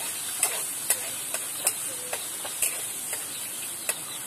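Garlic and onion sizzling in hot cooking oil in a wok, with a metal spatula clinking against the pan every half second or so as it stirs.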